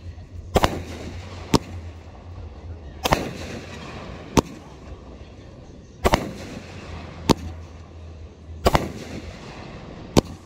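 Aerial firework shells going off: about eight sharp bangs, roughly one every second and a half, several trailing off in an echoing rumble.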